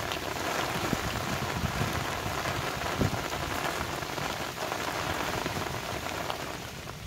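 Heavy rain falling steadily, a dense hiss with scattered ticks of individual drops.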